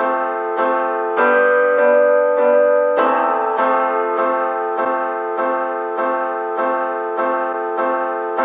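Background music: a piano or electric-piano figure repeating evenly spaced notes, about one to two a second.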